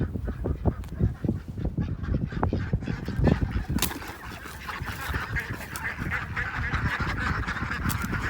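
Geese honking, with a run of soft low thumps in the first half.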